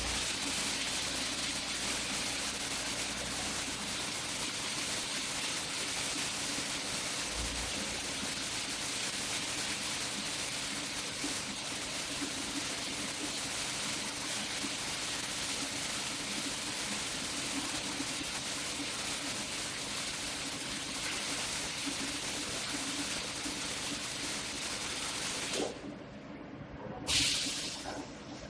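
Automatic multi-torch CO2 gas-shielded arc welding on steel scaffolding tube: a steady hiss with a low hum beneath. It cuts off suddenly about 26 seconds in, followed a second later by one short burst of hiss.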